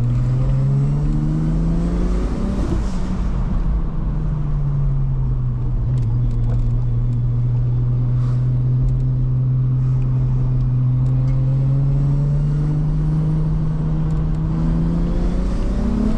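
Turbocharged Toyota 2JZ inline-six in a Nissan 180SX accelerating through the gears. The revs climb, drop at an upshift about three seconds in, hold steady while cruising, then climb again near the end. The turbo is spinning but not building boost.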